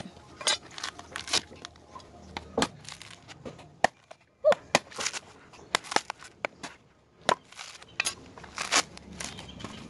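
Machete blade hacking into a coconut's fibrous husk and the husk being torn away: irregular sharp chops and cracks mixed with scratchy tearing of the coir fibres.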